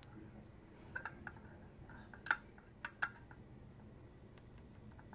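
Glass stirring rod clinking against a glass beaker while stirring, a handful of short clinks with the loudest a little after two seconds in, over a faint steady hum.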